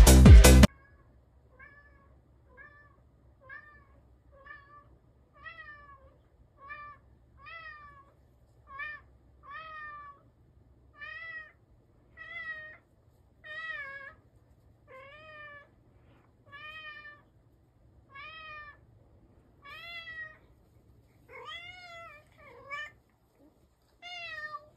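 Loud electronic music cuts off less than a second in. Then a black-and-white domestic cat meows over and over, short rising-and-falling meows about once a second, growing louder toward the end.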